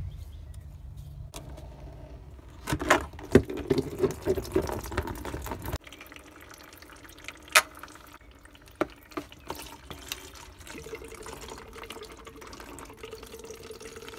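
Engine coolant draining from a loosened coolant hose at the water pump housing, dripping and then running steadily into a plastic bowl. In the first half, sharp clicks and knocks of a screwdriver working the hose's jubilee clip.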